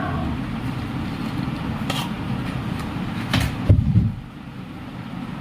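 A few sharp clicks and a louder knock about four seconds in as plastic LED bulb parts are handled and pushed together. A part is not seating. A steady low rumble runs underneath.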